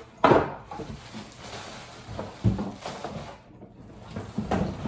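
Rustling and knocking of packaging and plastic parts being handled, in three or so sudden bursts with quieter shuffling between.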